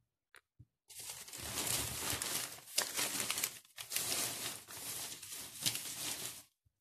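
Close, irregular rustling and rubbing with crinkling. It starts about a second in and stops just before the end.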